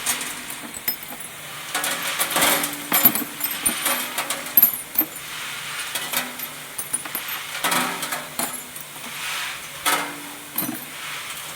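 Small metal parts (nuts, bolts and screws) clinking and rattling against one another and the metal of an industrial parts washing machine, in irregular bursts, with a low machine hum coming and going underneath.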